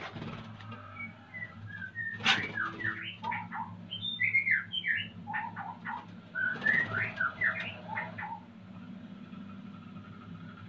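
White-rumped shama singing: three spells of quick, varied whistled notes that glide up and down.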